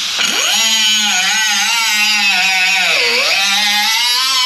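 Angle grinder cutting into a metal mounting bracket. Its whine climbs as the disc spins up, then holds steady over a loud hiss of the cut. It sags about three seconds in as the disc bogs under load, then climbs again near the end.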